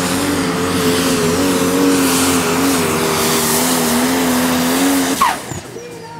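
Turbocharged diesel pulling tractor running flat out under load, a loud, steady engine note with a heavy rush of turbo and exhaust noise. About five seconds in the engine is shut down and its pitch falls quickly as it winds down.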